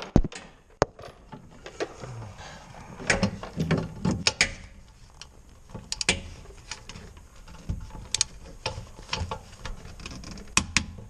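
Ratchet wrench clicking and metal tools clanking on brake bolts being run in and torqued: irregular sharp clicks and knocks.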